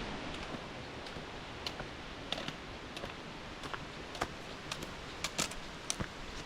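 Footsteps of hikers on a gravelly trail, heard as irregular sharp clicks over a steady hiss.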